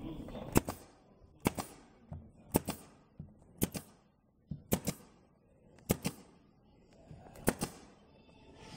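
Nail gun firing into wooden lattice slats: about seven sharp shots, roughly one a second, several as quick double shots, as the crossing slats are fastened together.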